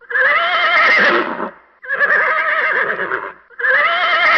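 Horse neighing: repeated whinnies, each about a second and a half long with a quavering, shaking pitch. The third starts near the end.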